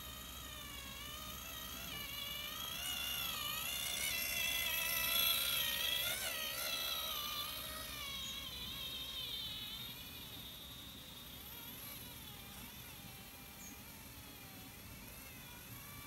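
Radio-controlled model tractor towing a roller, its electric drive whining with a pitch that rises and falls as the speed changes. Loudest about five seconds in, as it passes close, then fading.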